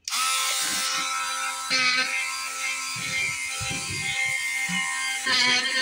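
Small handheld rotary tool running steadily with a high-speed carving and engraving bit cutting into wood, its motor whining throughout. Music with singing plays along with it and gets louder about five seconds in.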